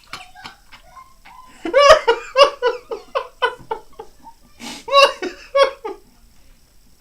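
Young children laughing hard: two runs of quick, high-pitched ha-ha bursts, the first about two seconds in and the second about five seconds in.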